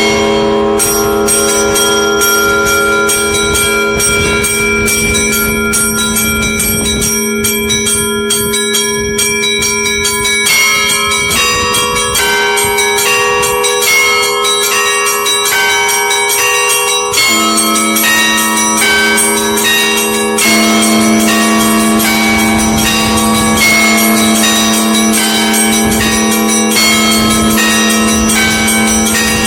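Russian Orthodox church bells ringing together in a festive Easter-week peal. A deep bell's tone sounds on steadily underneath while many smaller bells strike in quick, dense patterns.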